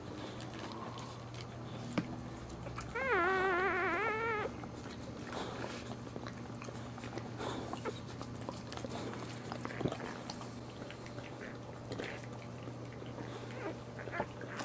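A newborn boxer puppy gives one wavering, high squealing cry for about a second and a half, about three seconds in. Faint small squeaks and rustles come and go over a steady low hum.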